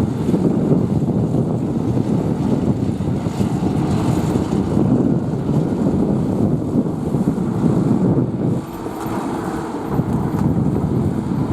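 Zetor 10540 tractor's diesel engine running steadily under load, driving a mulcher through corn stubble. The noise dips briefly about eight and a half seconds in.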